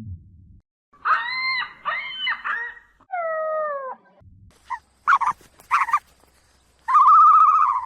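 A run of separate high, wavering animal calls: a warbling call about a second in, three falling glides around three seconds, short yelps around five seconds, and one long call near the end.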